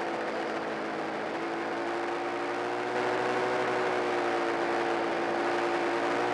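Polaris snowmobile engine running steadily under way on a trail, a steady drone that holds its pitch and gets a little louder about three seconds in.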